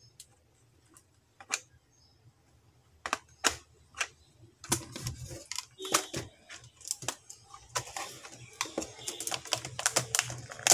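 Sparse plastic clicks and knocks from handling an HP Compaq Presario V6000 laptop. From about five seconds in they grow into a dense run of clicking and rattling as fingers press on the keyboard and work it loose from the case.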